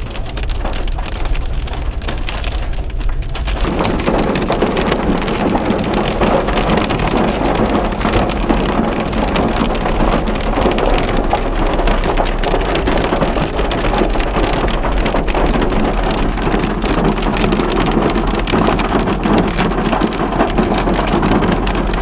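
Heavy hail pelting a moving car's roof and windscreen, heard from inside the cabin as a dense, loud rattle of hailstone impacts that grows heavier about three and a half seconds in, over a low steady road and engine hum.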